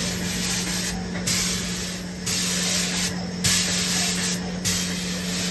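Airless putty sprayer with a large tip fitted, spraying wall putty in a loud hissing jet that surges and dips about once a second as the gun sweeps back and forth over the wall, laying a thick coat. A steady low hum runs underneath.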